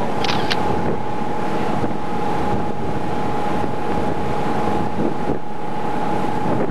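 Strong wind buffeting a camcorder microphone on the open deck of a boat under way, over a low rumble of the boat, with a thin steady whine underneath.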